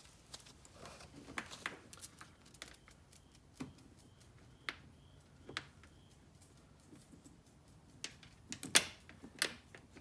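Scattered light clicks, taps and rattles of hands working at a car's plastic lower rear spoiler and its wiring, with a louder run of clicks near the end.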